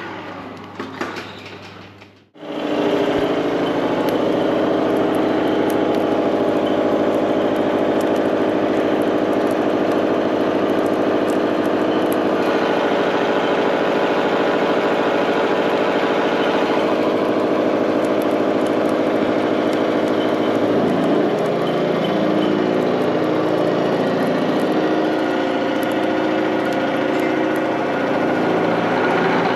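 A metalworking machine tool running steadily, a machine hum of several steady pitches. It cuts in abruptly about two seconds in after a short quieter stretch, and its tone shifts about 21 seconds in.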